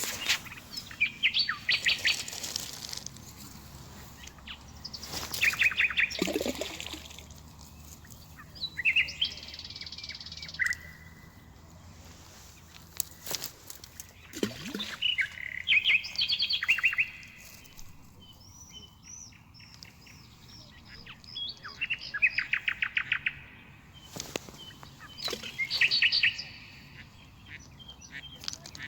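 A songbird singing in short bursts of fast chattering chirps, repeated every few seconds, with some higher single notes between the bursts.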